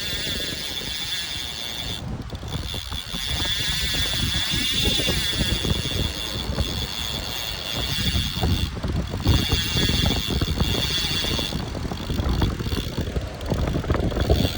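Wind buffeting the microphone in a gusty low rumble, with a steady high-pitched whine over it that drops out briefly twice.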